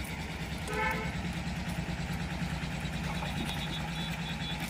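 A steady, low pulsing engine hum, as of a motor idling. About a second in, a short toot sounds over it.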